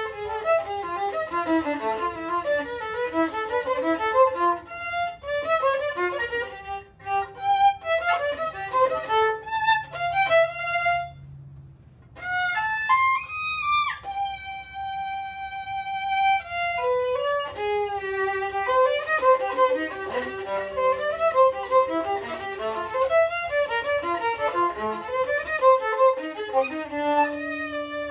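Unaccompanied violin, bowed, playing quick runs of notes. About eleven seconds in it pauses briefly, climbs to a long held high note, then goes back to fast passages.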